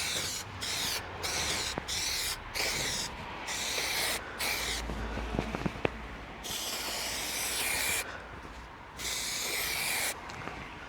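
Carpet being rubbed and smoothed by hand onto the van's ceiling: a run of brushing, hissing strokes, short and quick at first, then a few longer sweeps.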